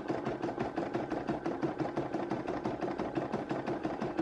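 A small motorised machine running steadily, with a rapid, even ticking over a constant hum.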